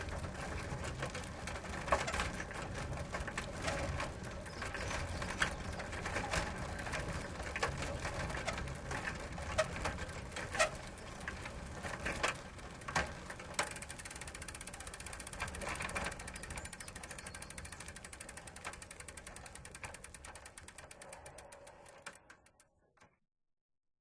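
Bicycle ridden slowly, its chain and frame rattling with scattered clicks and knocks. About 14 seconds in this gives way to a fast, fine ticking, like a rear freewheel hub coasting. The ticking slows and fades until it stops shortly before the end.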